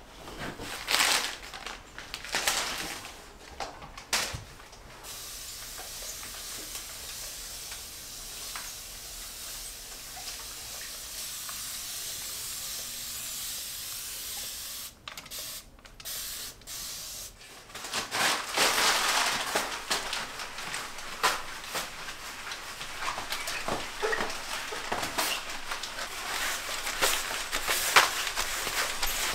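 A continuous fine-mist spray bottle hissing steadily onto window glass for several seconds. It is followed by crumpled newspaper rubbing and rustling against the glass in quick wiping strokes through the second half.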